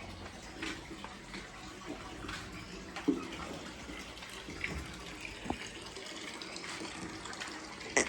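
Water running steadily, with a few scattered small knocks.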